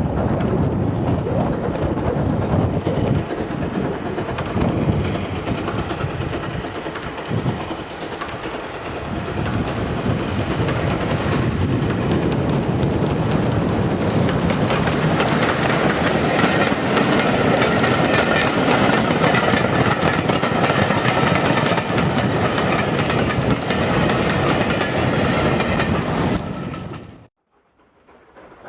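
LB&SCR E4 class 0-6-2 tank engine no. B473 working a passenger train past at speed, followed by its carriages rolling by on the rails. It grows louder as it draws near and passes, then cuts off abruptly near the end.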